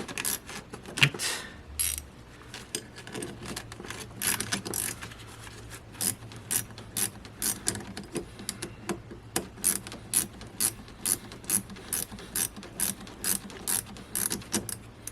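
Hand ratchet wrench tightening a bolt during an alternator installation. Its pawl clicks in short strokes, irregular at first, then settling into a steady run of about two clicks a second.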